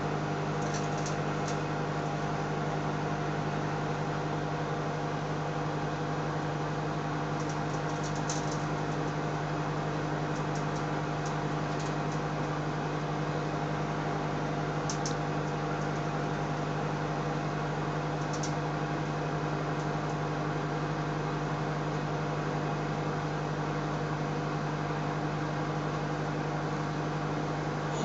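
Microwave oven running with a steady hum, with a few faint, brief high crackles from sparks arcing on the CD-Rs inside.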